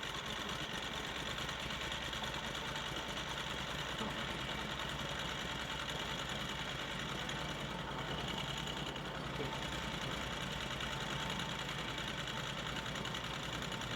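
Vintage sawmill's carbureted engine idling steadily, still running a little rough.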